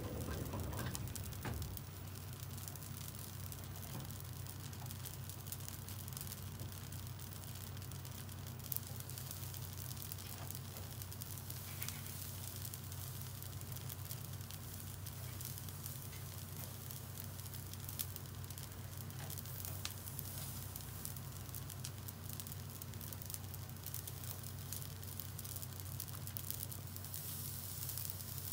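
Yaki-manju, skewered steamed buns glazed with sweet miso sauce, sizzling and crackling on a grill. A steady low hum runs underneath, and two sharp clicks come about 9 and 18 seconds in.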